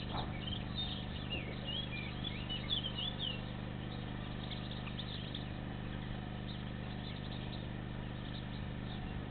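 Small birds chirping in a run of quick, gliding notes during the first three seconds or so, then fainter and more scattered, over a steady low hum.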